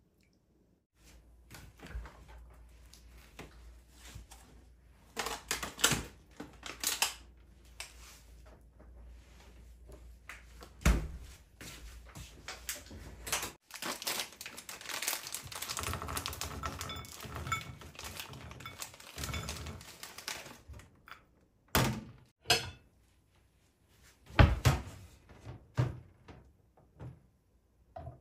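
Handling sounds of kitchen work: a string of knocks and clicks, with a busier run of rapid tapping and clatter in the middle.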